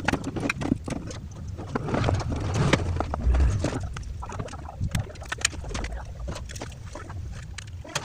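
Plastic casing and motor unit of a handheld vacuum cleaner being handled and fitted together: irregular clicks, taps and knocks of hard plastic with wires rustling, and a dull low thump a little past three seconds in.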